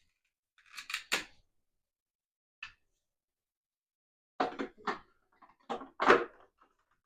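Hard plastic parts of a Sebo XP vacuum cleaner's cable hook assembly being handled and fitted back together: a few short clacks and knocks in small clusters, the busiest near the end.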